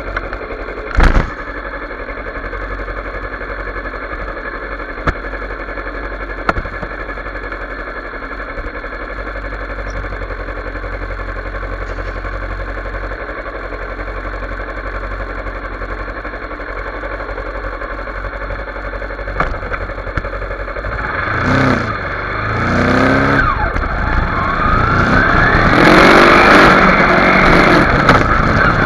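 Kawasaki Ninja 250R parallel-twin engine idling steadily, with one sharp knock about a second in. Near the end it is blipped twice, then revs rise and grow louder as the bike pulls away.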